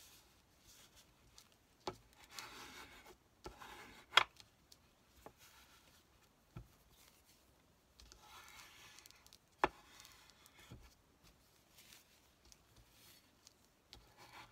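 Paper being handled and rubbed, in two spells of soft rustling about two and eight seconds in, with a few sharp taps; the loudest tap comes about four seconds in.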